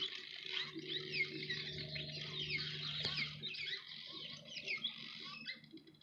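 A dense chorus of many birds chirping, with quick, high, falling notes overlapping continuously and thinning out near the end. A low steady hum runs underneath for a few seconds in the first half.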